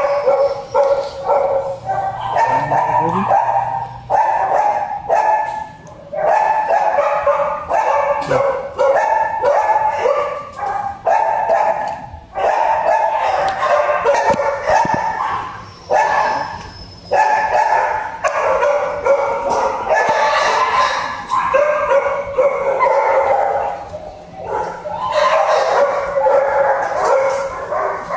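Shelter dogs in wire kennels barking and yipping almost without a break, the barks coming in quick runs with brief lulls every few seconds.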